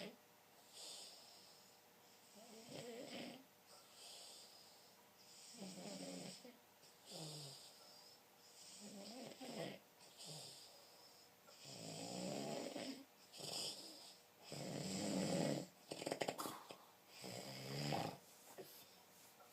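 Snoring: a sleeper's rough snores at irregular intervals, about ten in all, some short and some drawn out over a second. The longest and loudest comes about three-quarters of the way through.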